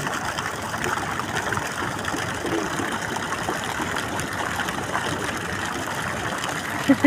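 Thin water jets of a street fountain splashing steadily onto the paving and into the fountain's shallow basin.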